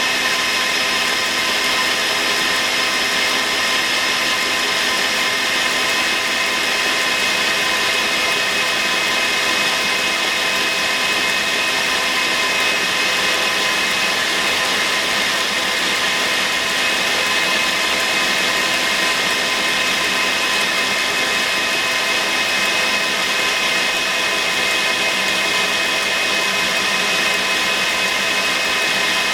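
Electric mixer with a whisk running steadily at high speed, beating duck egg whites toward stiff peaks. A constant motor whine with no change in speed.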